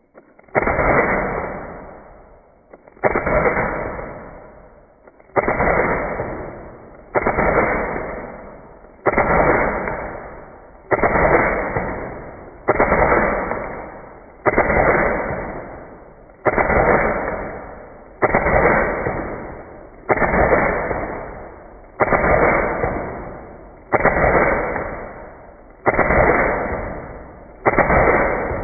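Slowed-down shots from a Glock 17 Gen4 airsoft pistol: about fifteen deep, muffled bangs, evenly spaced about two seconds apart, each starting sharply and dying away slowly.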